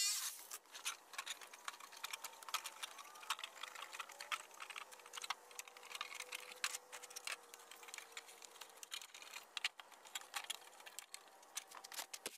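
Light, irregular clicking and tapping of thin plastic being handled: the cut flaps of a blue plastic barrel being flexed and bent outward.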